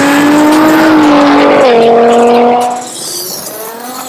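Nissan GT-R's twin-turbo V6 running hard under acceleration, its note climbing slowly, then changing pitch abruptly about a second and a half in; it drops off in loudness a little before three seconds in.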